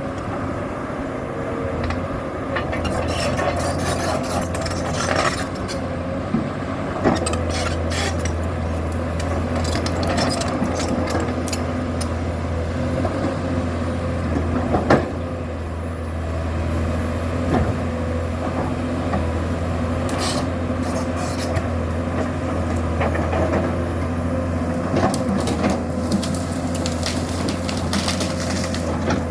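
Komatsu PC200-7 excavator's six-cylinder diesel engine running steadily under work, with scattered clanks and knocks from the machine at work throughout.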